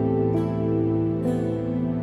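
Slow, gentle instrumental background music, with a new sustained note about every second.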